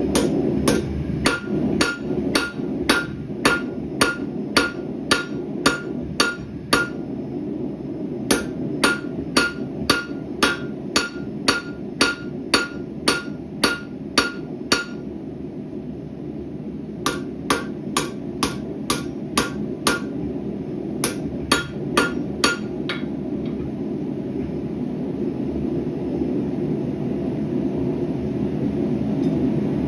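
Hammer blows on hot rebar steel at the anvil, about two strikes a second in runs broken by short pauses, each blow ringing. The hammering stops a little past two-thirds of the way through, leaving a steady rushing noise that grows slightly louder near the end.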